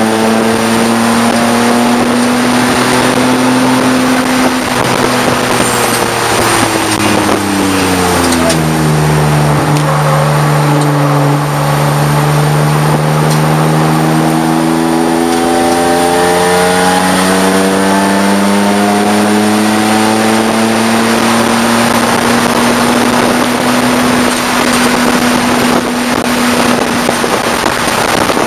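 Race car engine heard from inside the cockpit, holding steady revs, then dropping over several seconds about five seconds in as the car slows for a corner, and climbing steadily back up about halfway through, over steady wind and road noise.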